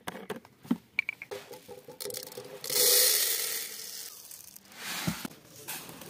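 A plastic screw cap is worked off a jerrycan with a few clicks and knocks. Then dry bird seed is poured into a plastic feeding tray: a loud rushing patter of grains from a little before three seconds in, tailing off.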